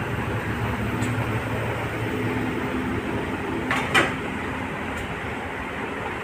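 Steady low background hum, with one sharp clink about four seconds in: a steel serving spoon knocking against a steel pan of poha.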